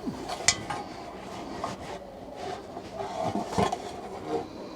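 Scattered knocks and light metal clatter of tools being handled, the sharpest knock about half a second in and another near the end.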